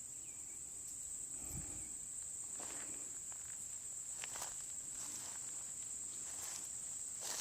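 Faint, steady, high-pitched cricket chorus, with a few brief soft rustles and a low thump about one and a half seconds in.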